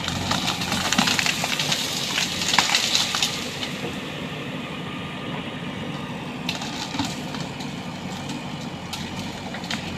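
JCB 3DX backhoe loader's diesel engine running steadily while its arm pushes a tree over. For the first three seconds or so branches crack and snap as the tree comes down through the foliage, then the engine carries on alone with a couple of sharp snaps.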